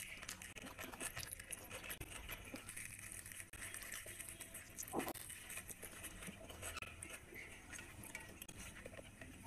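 Eating sounds: chewing and wet mouth sounds, fingers tearing a fried puri (luchi) and scooping curry off a plate, made up of many small crackles and clicks. One louder sharp click about five seconds in.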